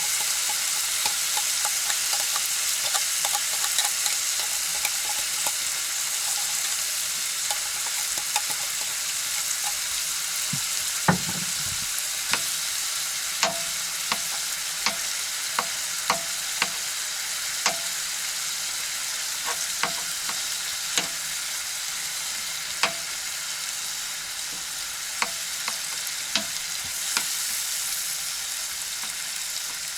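Canned stewed meat (tushonka) frying in a pan: a steady sizzle with scattered sharp pops.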